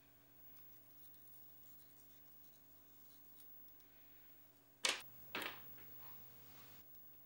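Quiet room tone, then about five seconds in two short, sharp scratchy sounds close together and a fainter rustle from fly-tying tools and materials being handled at the vise.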